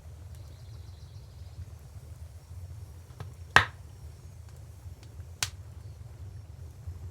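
Wood fire crackling: a few sharp pops, the loudest about halfway through and another about two seconds later, over a steady low rumble.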